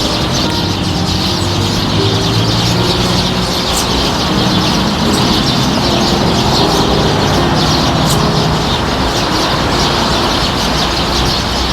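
A large flock of sparrows chattering at their evening roost: a dense, unbroken mass of overlapping chirps.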